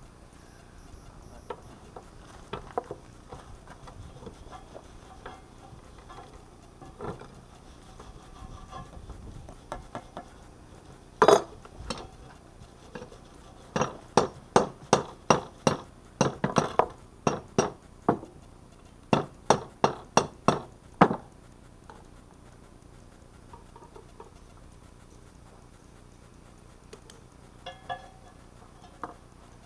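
Hand hammer striking a hot Damascus steel billet held in tongs on an anvil, drawing out the forge-welded layers. After a few light tool clinks comes one heavy blow about eleven seconds in, then a run of blows, about two or three a second, for some seven seconds with a short pause partway through.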